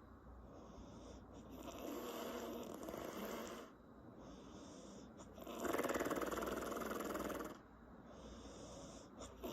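A woman snoring in slow breaths, her lips flapping as the air passes. The two loudest snores come about 2 and 6 seconds in and last roughly two seconds each, with quieter breathing between them and a short click near the end.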